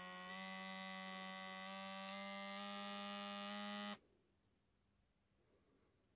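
Wrist blood-pressure monitor's small cuff-inflation pump running with a steady electric hum, its pitch creeping up slightly in small steps as the cuff pressure builds. There is a single tick about two seconds in, and the pump stops abruptly about four seconds in.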